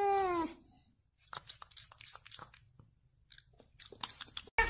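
A cat's drawn-out meow, sliding slightly down in pitch, ends about half a second in. Faint scattered clicks follow for a few seconds, and a loud new cry cuts in at the very end.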